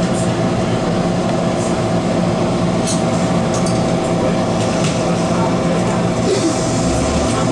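MTR Tsuen Wan Line M-Train (Metro-Cammell electric multiple unit) at a station platform, its electrical equipment giving a steady hum made of several steady tones. The train starts to move off near the end.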